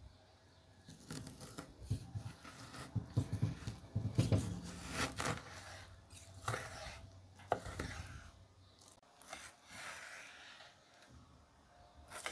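Chef's knife slicing through raw ribeye steak on a wooden cutting board: irregular sawing, slick cutting strokes with a few sharp knocks on the board.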